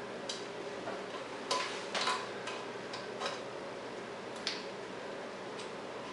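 Stiff coat-hanger wire clicking and scraping against the porcelain under a toilet rim, in irregular sharp taps, the loudest about one and a half and two seconds in, as the rim's clogged flush holes are poked open.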